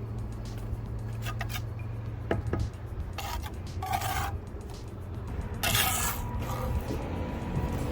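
A mason's trowel and stone scraping against mortar in several short, sharp scrapes, over a steady low hum.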